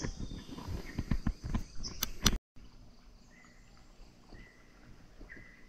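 Tropical forest ambience with a steady high insect drone. For the first two seconds or so, irregular knocks and thumps close to the microphone cover it, then they stop abruptly; after that a short chirp repeats about once a second.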